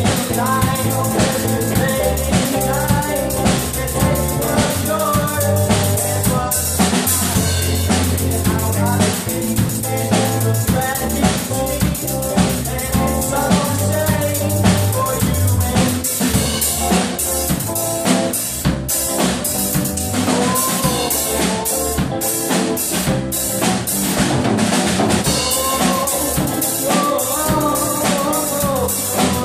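Small rock band playing live: a drum kit's bass drum, snare and cymbals drive the beat under electric guitars, loud and without a break.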